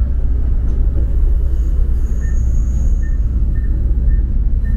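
A moving train's steady running rumble heard from inside the carriage, with a faint high whine for about a second midway.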